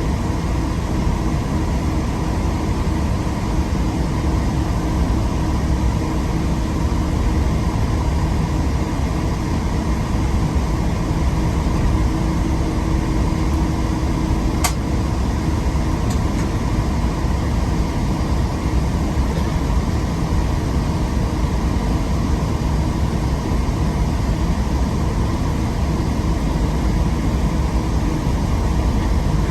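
Steady cabin noise inside a Boeing 777-200ER after landing, on the way to the gate: the engines at low power and the air-conditioning make a low rumble with a faint steady hum. A single sharp click comes about halfway through.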